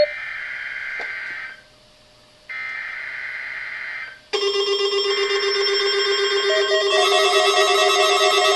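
Emergency Alert System SAME header data bursts: three short warbling digital bursts, each about a second and a half long with brief gaps between. About four seconds in, louder music starts and plays under the third burst.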